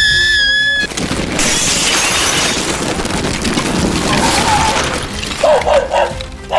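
Earthquake crash effect: a high held cry cuts off under a second in, then shattering and breaking debris crashes loudly for about four seconds. Short dog barks and yelps come in near the end.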